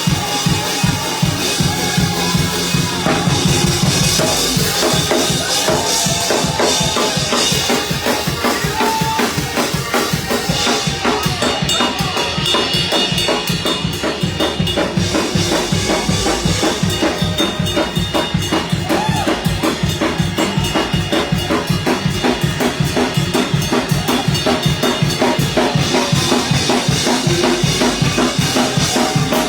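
Up-tempo gospel praise music led by a drum kit playing a steady, driving beat of kick, snare and rimshots, with instruments above it.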